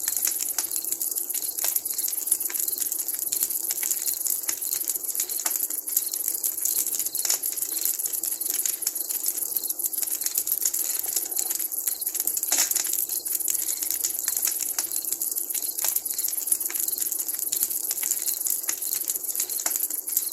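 Wood campfire crackling and popping: irregular sharp snaps over a steady hiss.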